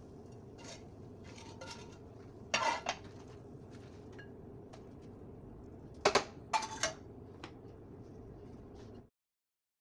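Kitchen utensils clinking against cookware and dishes in scattered knocks over a steady low hum, with the loudest clusters about two and a half and six seconds in. All sound cuts off suddenly near the end.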